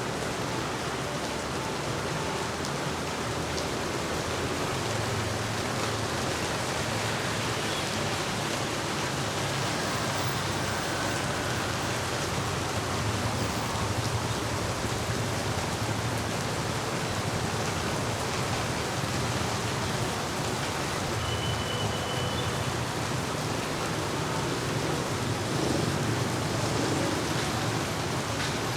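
Heavy rain falling steadily: an even, constant hiss with a low steady hum underneath.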